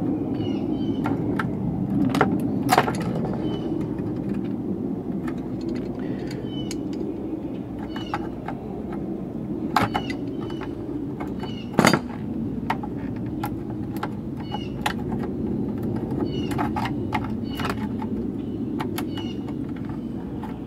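Pliers and a screwdriver prying press-fit gold-plated pins out of a circuit board: a string of sharp metallic clicks and snaps at irregular intervals, with one louder crack about twelve seconds in. A steady low drone runs underneath.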